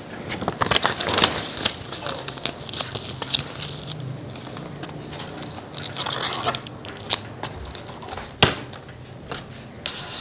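Paper and cardboard packaging of a Pokémon card box being handled: irregular crinkling and rustling with scattered sharp clicks and taps.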